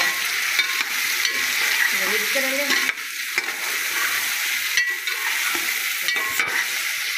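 Chicken pieces sizzling as they fry in oil in a metal pot while a slotted metal spoon stirs them, with a steady hiss and occasional clicks and scrapes of the spoon against the pot.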